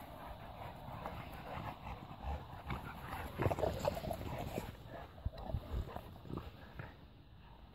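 Bullmastiffs play-wrestling, making short dog vocal noises with scuffling, busiest about halfway through.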